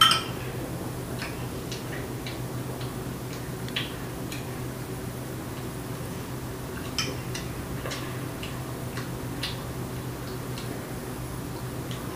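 A metal spoon clinking against a ceramic cereal bowl: one sharp clink at the start, then scattered softer clinks and ticks, the clearer ones about 4 and 7 seconds in. A steady low hum runs underneath.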